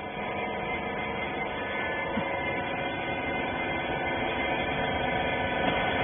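Hydraulic clothing baler's power unit (electric motor and pump) running with a steady hum, several held tones over a noisy bed, getting slightly louder toward the end.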